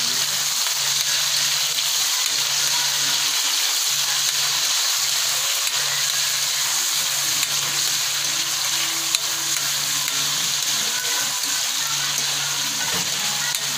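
Cubes of tofu deep-frying in hot oil in a wok: a steady, even sizzle.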